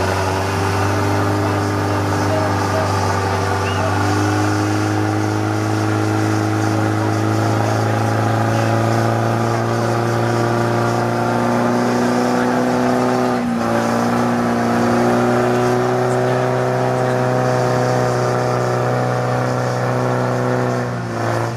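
Off-road 4x4's engine held at steady, high revs under load as the vehicle crawls over the edge of a steep muddy bank, with a few small shifts in pitch and a brief dip about two-thirds of the way through.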